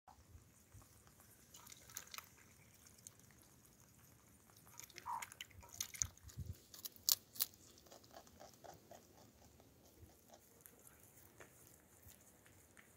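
Faint rustling and scattered sharp clicks and crunches from rabbits moving and nibbling in a wire cage on grass, loudest about seven seconds in. A short run of faint quick pitched notes follows about eight seconds in.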